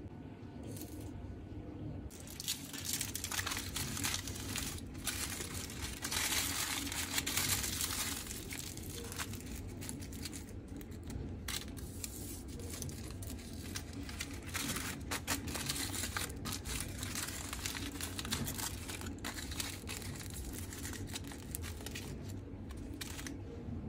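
Crinkling and rustling of material being handled, with many scattered light clicks and taps, over a steady low hum.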